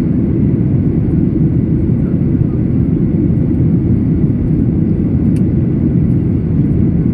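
Steady low roar of a Boeing 737-800's CFM56-7B jet engines and rushing air, heard inside the cabin from a seat over the wing during the climb after takeoff.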